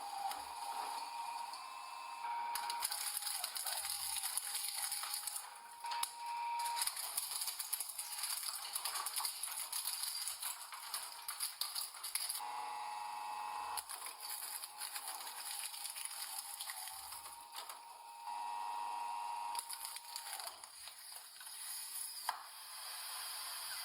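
A machine crushing objects: dense crackling, snapping and cracking, with short stretches of a steady whine from the machine in between.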